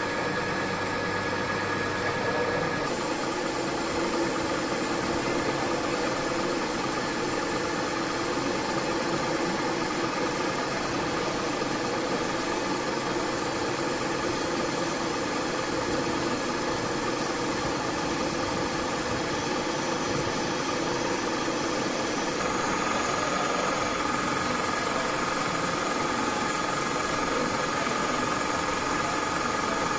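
Metal lathe running steadily while its tool cuts an external trapezoidal thread on a metal shaft: a continuous machine hum with steady whining tones that change about three seconds in and again around twenty-two seconds.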